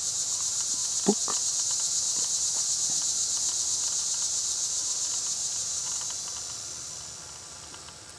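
Insect chorus: a steady, rapidly pulsing high-pitched buzz that fades away over the last couple of seconds. A brief sharp sound stands out about a second in.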